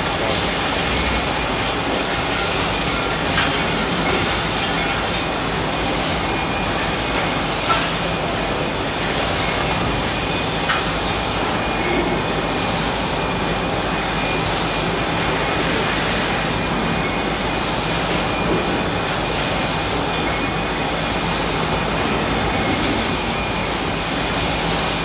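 Automatic case packing machine running: a steady mechanical hum and clatter from the pick-and-place head and conveyors, with a faint steady whine and a few short sharp clicks, the sharpest about eight seconds in.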